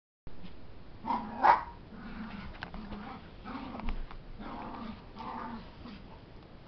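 A puppy play-fighting with a larger dog: two sharp yaps about a second in, then a string of short, low play growls.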